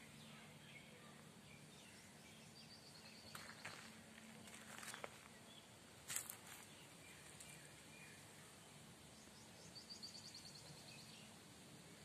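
Near silence: faint garden ambience with distant birds chirping, a quick run of high notes about three seconds in and again near ten seconds. A few soft clicks fall in the middle, the sharpest about six seconds in.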